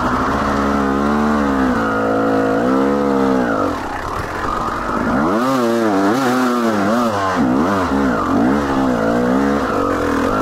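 Dirt bike engine revving up and down under throttle, its pitch rising and falling in long swells. It drops off briefly about four seconds in, then comes back in quicker rises and falls.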